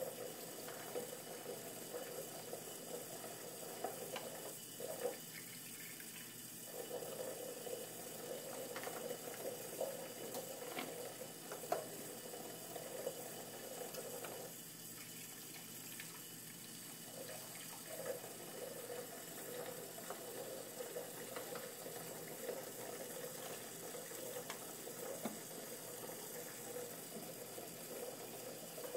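Kitchen faucet running a thin stream into a sink of soapy water while small plastic dishes are rinsed under it; the splashing note drops away twice and comes back. A few light knocks are heard along the way.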